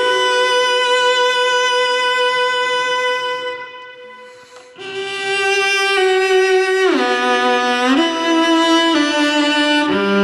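Solo cello, bowed and recorded close through a large-diaphragm condenser microphone. It plays a slow melody of long held notes: the first dies away around four seconds in, then a new phrase steps downward note by note.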